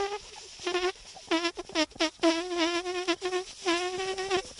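A boy imitating a mosquito's whine with his voice: a run of steady, high, nasal hums, each up to about a second long, with short breaks between them.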